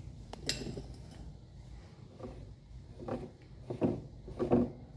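Light clicks and knocks of washing-machine mechanism parts being handled: a sharp click shortly after the start, then a run of short knocks in the last couple of seconds.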